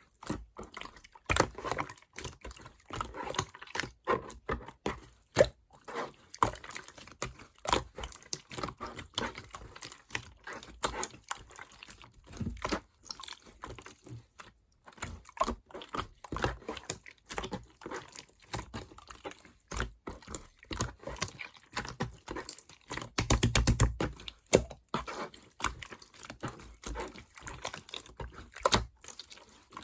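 Clear slime being squished and pressed by hand, giving irregular sticky clicks and small pops, with a denser, louder run of crackling about 23 seconds in.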